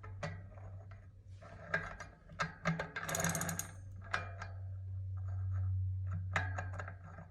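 Bicycle wheel hub turning with irregular clicking, knocking and rattling, denser about three seconds in, over a steady low hum: the sound of the hub's bearings, which the owner suspects are crushed.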